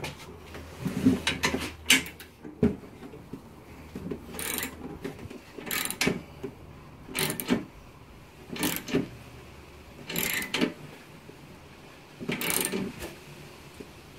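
Socket ratchet clicking in short bursts, roughly one every second and a half, as a nut is tightened down on a suspension arm's bolt.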